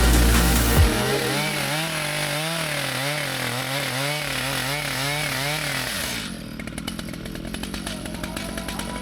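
Chainsaw running a 48-inch bar in a chainsaw mill, cutting through a log. Its engine pitch wavers up and down about twice a second under the load of the cut, then turns to a rougher, steadier buzz. Background music runs underneath.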